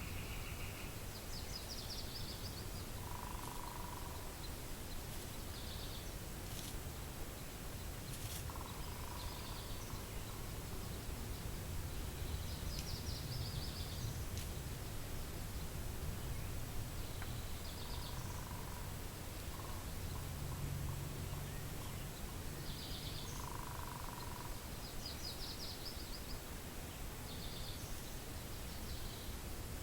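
Steady low wind rumble, with songbirds calling every few seconds: short high trills and lower single notes that recur in small phrases.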